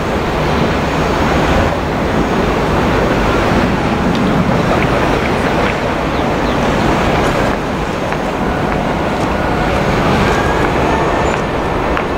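Airbus A380's four Rolls-Royce Trent 900 engines at approach power as the airliner comes in on final approach, a steady jet rumble with a faint rising fan whine near the end.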